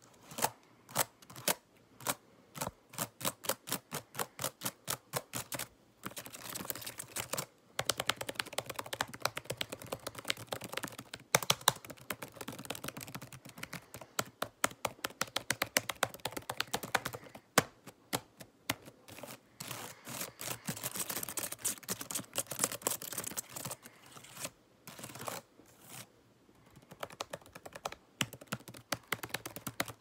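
Fast fingertip and fingernail tapping on and around the camera, in typing-like runs of sharp clicks several a second with brief pauses.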